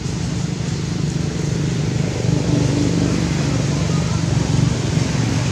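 A steady low rumble with an even hiss over it, growing slightly louder, with a few faint high chirps near the end.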